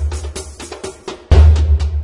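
Background music: a drum-heavy track with deep bass. It thins out briefly about a second in, and the full beat comes back in hard just past halfway.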